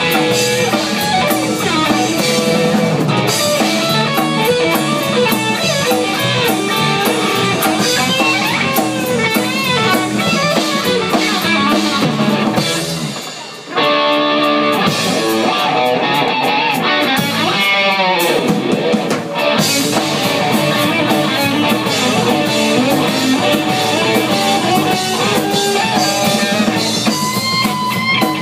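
Live instrumental rock played by a band: a lead electric guitar plays fast lines over a drum kit. A little under halfway the music drops out briefly, then the guitar comes back on held notes with bending, gliding pitch.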